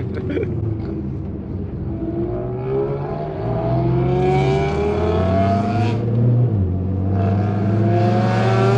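A performance car's engine accelerating hard, its pitch rising steadily through a gear, dropping briefly at an upshift about six and a half seconds in, then climbing again in the next gear.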